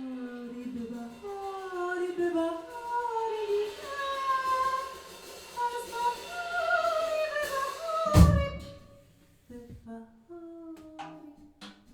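Freely improvised music: wordless singing and sustained pitched tones slide slowly in pitch, and a single deep drum hit sounds about eight seconds in.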